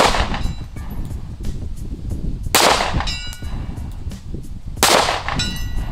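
Three 9mm shots from a Staccato CS subcompact pistol, about two and a half seconds apart. Each is followed about half a second later by the faint ring of a distant steel target being hit.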